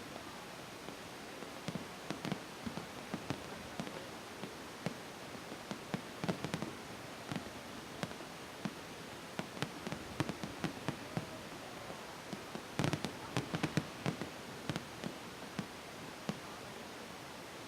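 Fireworks display heard from a distance: sharp pops and bangs at irregular intervals, with a dense cluster about thirteen seconds in, over a steady hiss.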